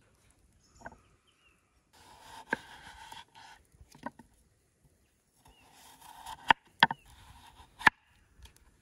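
A large kitchen knife slices through a peeled raw potato on a wooden chopping board. Crisp cutting strokes each end in a sharp knock of the blade on the wood, about five knocks in all, the loudest near the end.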